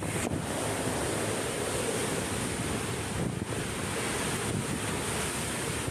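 Strong storm wind gusting hard, with heavy wind buffeting on the microphone: a dense, steady rush of noise that dips briefly twice.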